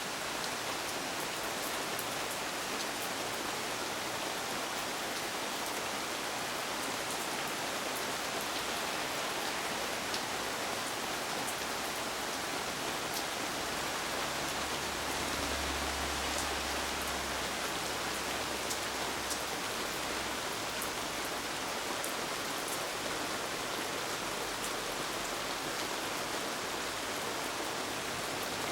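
Steady rain falling: a dense, even hiss with scattered sharp drop ticks. A low rumble swells briefly around the middle.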